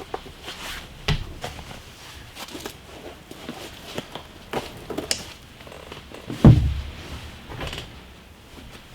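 Scattered knocks and thumps of things being handled, with a sharp knock about a second in and a heavy thud about six and a half seconds in.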